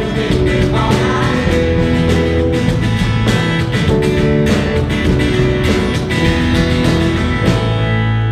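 Live worship band playing without vocals: strummed guitars over keyboard chords, the strumming stopping near the end to leave a held chord ringing.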